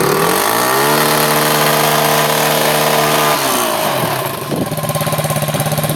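Motorcycle engine revved up from idle, held at high revs for about two and a half seconds, then dropping back to a steady idle, in a wheelie attempt.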